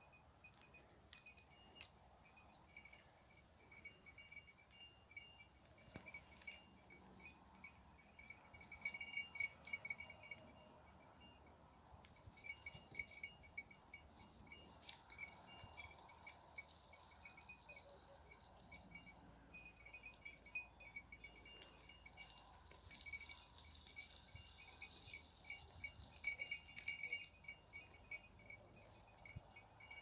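Goat bells jingling faintly and irregularly, small bright rings coming and going as the goats move over the rocks.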